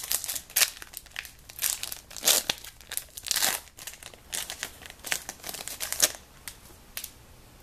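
Yu-Gi-Oh booster pack wrapper crinkling and tearing open in the hands, a run of sharp crackles that dies away about six seconds in.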